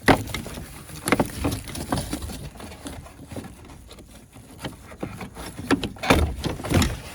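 Plastic interior car trim being worked loose by hand: irregular clicks and knocks from its tabs, with handling and rubbing between them. The loudest knocks come at the very start, about a second in, and again around six seconds in.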